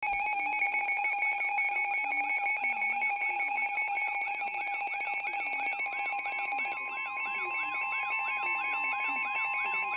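Several weather alert radios sounding their alarms together for a severe thunderstorm warning: steady alert tones with a warbling siren repeating about two to three times a second. About six seconds in, a new steady tone joins, matching the 1050 Hz NOAA Weather Radio warning alarm tone.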